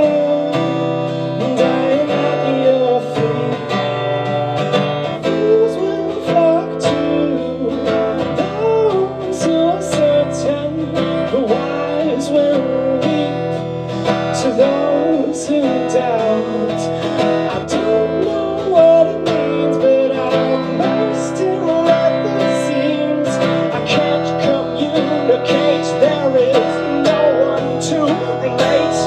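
Acoustic guitar strummed and picked, with a man singing along into a microphone.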